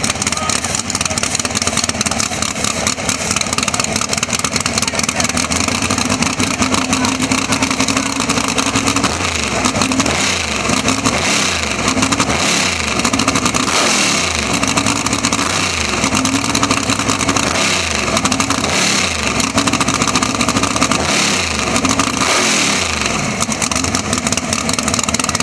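Drag race car engine running, then revved in a string of throttle blips, roughly one every second and a half, over steady background noise.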